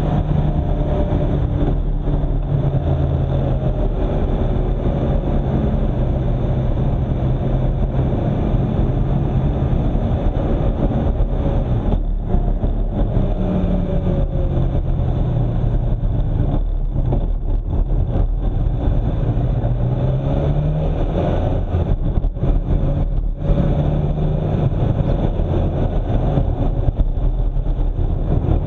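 A car driving along, its engine note rising and falling several times as it speeds up and slows, over a steady deep rumble of road and wind noise.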